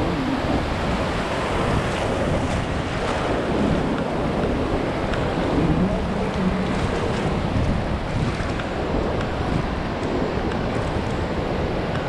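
Pacific Ocean surf breaking and washing up the sand in a steady rushing noise, with wind buffeting the microphone.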